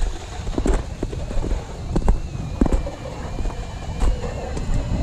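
Footsteps on snow-covered lake ice, irregular steps a few times a second, with wind buffeting the microphone in a low rumble.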